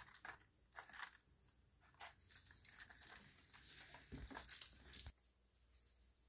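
Faint crinkling, rustling and small taps of a cardboard cat-treat advent calendar being handled as its doors are opened and a cat noses into it, stopping abruptly about five seconds in.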